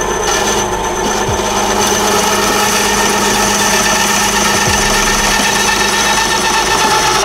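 Benchtop band saw running with a steady whine while its blade cuts through a wooden dowel (a broomstick). The cutting noise stops abruptly near the end as the blade comes through the wood, leaving the saw running.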